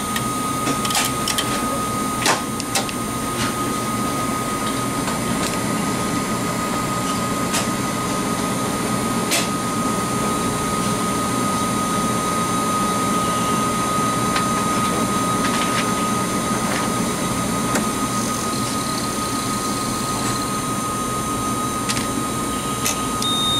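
Immufuge II serological centrifuge spinning test tubes: a steady whir with a constant high whine. A few clicks sound in the first few seconds, and there is a short high beep near the end.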